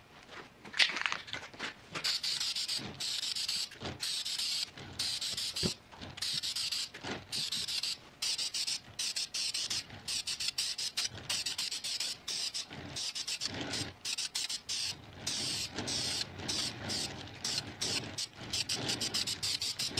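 Aerosol spray can of low-gloss black Duplicolor engine enamel spraying a brake drum, hissing in many short bursts with brief breaks between them.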